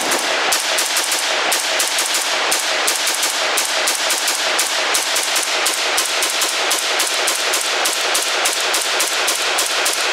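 Rapid semi-automatic fire from an ATI Galeon, a 5.56 NATO replica of the Galil ARM rifle: a long unbroken string of shots at about four a second, emptying a magazine.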